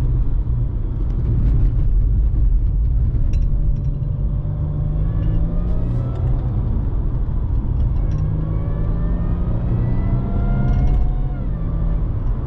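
Supercharged Jaguar engine, fitted with an upgraded crank pulley that spins the supercharger faster, accelerating hard, heard from inside the cabin. A deep engine rumble runs under a whine that climbs in pitch twice, first around five seconds in and again from about eight to eleven seconds, then falls away near the end.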